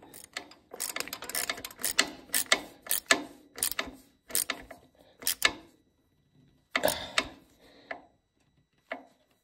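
Metal clicking and clinking from hand work on a new mechanical fuel pump and its brass fuel line fitting: rapid, irregular sharp clicks in dense runs, stopping about five and a half seconds in, then a short cluster about seven seconds in and a few faint clicks near the end.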